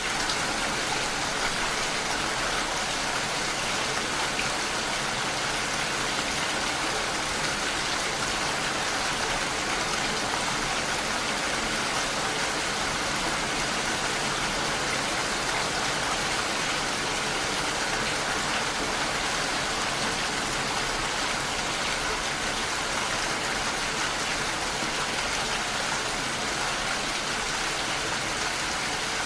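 Steady rain falling, an even hiss of drops with no thunder or breaks.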